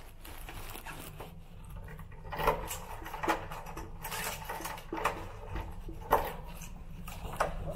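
Scattered light knocks and clicks, as of household things being handled, roughly one a second from about two seconds in, over a low steady hum.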